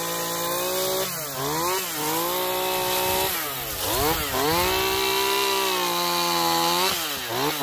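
Stihl two-stroke chainsaw running at high revs while cutting into a log, its pitch dipping and picking up again about three times.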